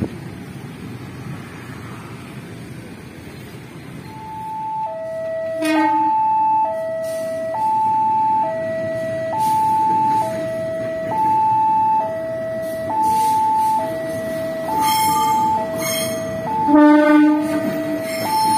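Level-crossing warning alarm starts about four seconds in and alternates steadily between a higher and a lower tone, switching about once a second, over street traffic. A short horn blast sounds near six seconds, and a louder locomotive horn sounds near the end as a light locomotive approaches the crossing.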